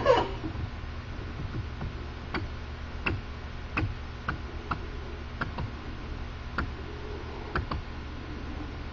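Hydraulic chain crimping tool cycling with its jaws slowly retracting: a faint steady hum with irregular sharp ticks, roughly one or two a second. The slow return is what the owner takes for the jaws binding.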